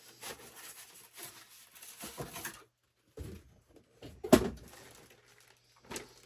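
Packaging rustling as parts are handled and pulled from a box, then a sharp knock about four seconds in, the loudest sound, as something is set down or bumped, and a lighter knock near the end.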